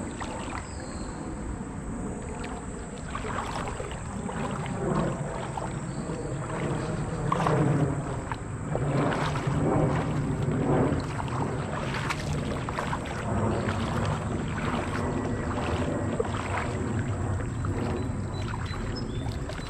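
Shallow creek water sloshing and splashing in an irregular run of small splashes, from wading and handling a hooked carp in the water.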